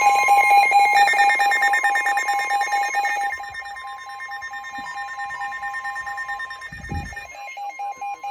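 Several NOAA weather radios sounding a severe thunderstorm warning alert at once: a steady warning tone overlapped by the radios' own repeating electronic beeps. The steady tone stops about two-thirds of the way through, leaving the beeping.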